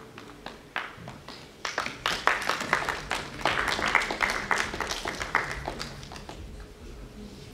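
A small audience clapping. It starts with a few scattered claps, swells about two seconds in, and dies away before the end.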